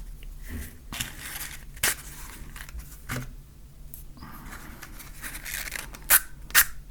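Matches and a matchbox handled up close: scratching and rustling, broken by a few sharp clicks.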